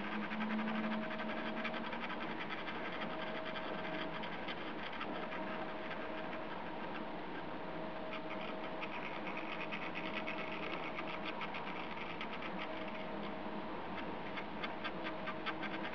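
Small electric motor of a rotating display turntable running steadily: an even whir with fast, regular ticking and a faint tone that comes and goes every couple of seconds.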